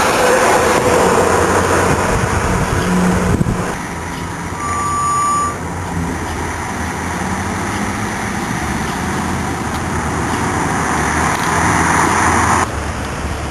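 Steady outdoor road-traffic noise from passing motor vehicles, with a single short high beep about five seconds in.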